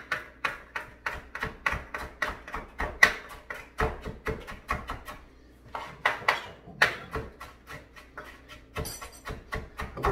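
Kitchen knife rapidly chopping fresh dill on a plastic cutting board, mincing it fine. The strikes come at about five a second, in runs broken by short pauses.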